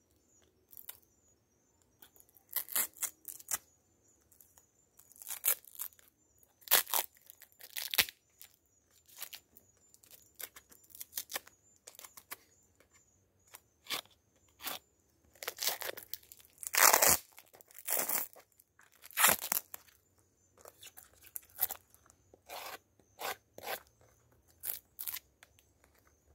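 Plastic film and aluminium foil wrapping being cut and ripped off a bee bait box with a pocket knife: irregular tearing and crinkling bursts, the loudest about two-thirds of the way in.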